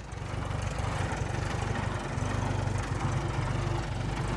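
A 1947 Minneapolis Moline R tractor's four-cylinder engine running steadily as the tractor is driven.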